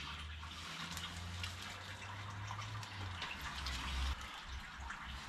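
Water running steadily into a stainless-steel sink, an even splashing hiss with a few faint drips and ticks, over a low steady hum.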